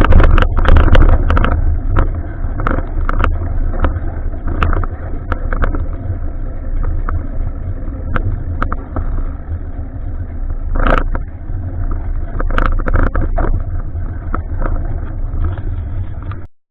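Riding noise on a bicycle-mounted action camera: a heavy, steady low rumble of wind and road on the microphone, with frequent sharp clicks and rattles from the bike and mount. It cuts off suddenly near the end.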